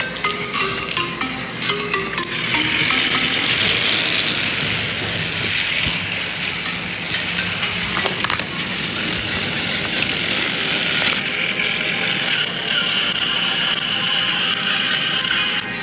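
Battery-powered toy train running along plastic track: a steady rattling whir of its small motor and wheels, with a sharp click about eight seconds in.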